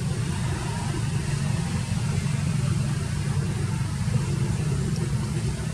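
A steady low rumble of an engine running, with no change in pitch or level.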